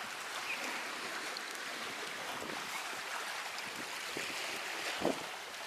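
Small sea waves washing and lapping among concrete tetrapods and rocks, a steady hiss of moving water, with a short knock about five seconds in.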